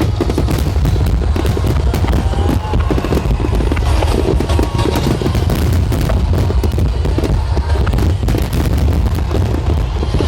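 Dense barrage of aerial fireworks: a continuous low rumble of bursting shells with rapid crackling throughout, heard over loudspeaker music.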